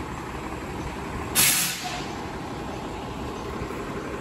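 Short, sharp hiss of a city bus's air brakes about a second and a half in, over the bus's steady engine rumble and tyre noise on wet pavement.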